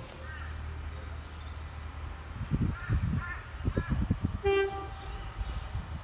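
A train on the line: a horn chord cuts off at the start, then a steady low rumble with a run of low thuds in the middle and a brief pitched tone about four and a half seconds in.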